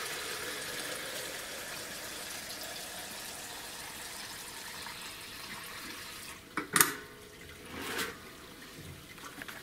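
Rinse water draining from the bottom valve of a conical fermenter into a plastic jug: a steady pouring that slowly fades. About seven seconds in, a sharp knock, then a smaller one a second later, as the valve and jug are handled.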